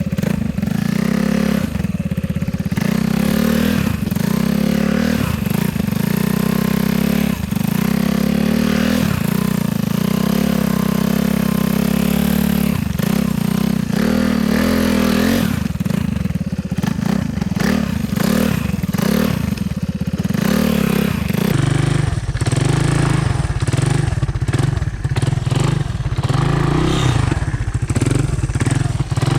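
Honda ATC 200M three-wheeler's single-cylinder four-stroke engine running steadily while being ridden. About two-thirds of the way through, the engine note drops to a lower steady pitch.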